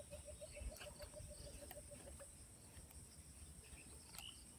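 Near silence with a faint, evenly pulsing call from a small animal, about six pulses a second, which stops about two seconds in. A few faint ticks sound here and there.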